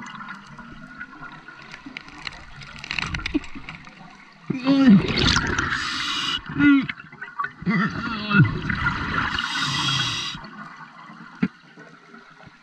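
Scuba regulator breathing underwater: hissing inhalations through the demand valve alternating with gurgling bursts of exhaled bubbles. The breaths come in the second half, after a quieter first few seconds.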